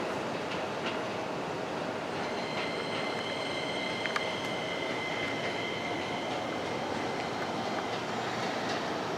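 Electric commuter train running in a station. A steady high-pitched squeal sits over the running noise from about two and a half seconds in until about six seconds in, with a few light clicks.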